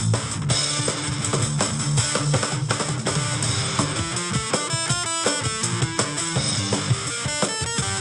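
Electric guitar riff over a drum kit beat. About halfway through and again near the end the guitar plays fast runs of single notes up and down.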